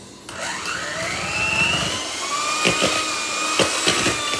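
Electric hand mixer switched on: its motor whines up to speed over about a second and a half, then runs steadily while beating butter, sugar and oil. A few sharp knocks come in the second half.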